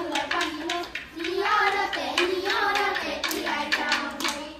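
A child's voice singing a chant over quick, rhythmic hand claps.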